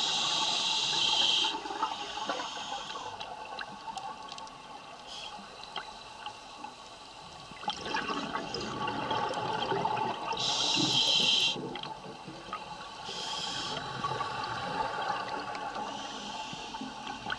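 Scuba diver breathing through a regulator underwater: hissing inhales, the strongest at the start and about ten seconds in, alternating with the bubbling rumble of exhaled air escaping.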